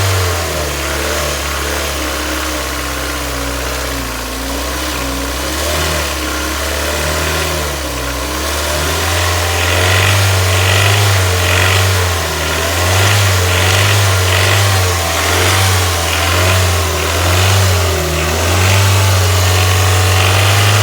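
Hyundai Elantra HD's 1.6-litre G4FC inline-four engine running, at first with an unsteady idle, then revved up briefly several times in a row in the second half. The owner is chasing a knock he cannot place: timing chain, valve lifters, bearing shells or scored cylinders.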